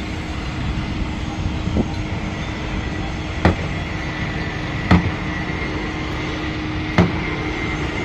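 Construction-site din: a steady mechanical hum with a faint held tone, broken by four sharp knocks, one to two seconds apart.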